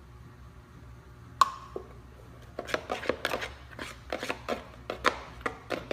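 A spoon stirring and knocking in a bowl of slime made from glue, shaving cream and laundry detergent: one sharp clink of spoon on bowl about a second and a half in, then from about halfway rapid repeated clicks and knocks, several a second, as the spoon works the mix.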